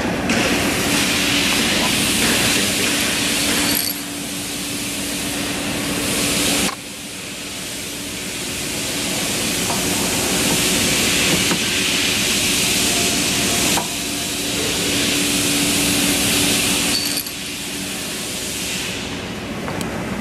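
Steady machine-shop noise: a constant machine hum under a broad hiss, with a few light metal clinks. The level drops suddenly several times.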